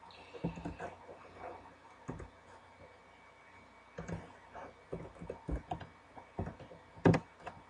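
Computer keyboard keys being typed in short, irregular runs of clicks, with one louder keystroke near the end.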